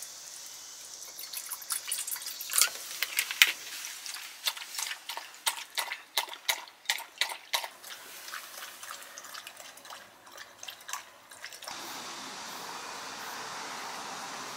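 A Welsh corgi lapping water from an enamel bowl: a quick, uneven run of wet laps. About twelve seconds in it cuts to a steady outdoor background noise.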